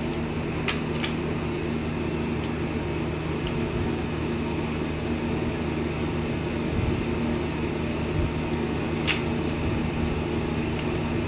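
A steady machine hum with a few sharp metallic clicks as a flaring tool is worked on the end of the air conditioner's copper pipe.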